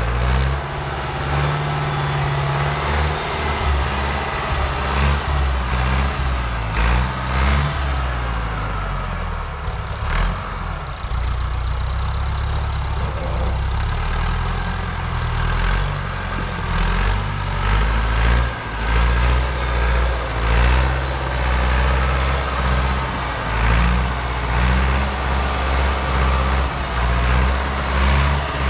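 A motor vehicle's engine running throughout, its pitch stepping up and down, with occasional knocks and rattles.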